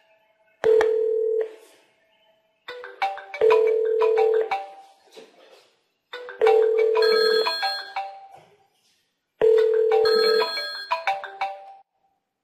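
Phone ringtone for an incoming call: a short pitched melody played four times with gaps between.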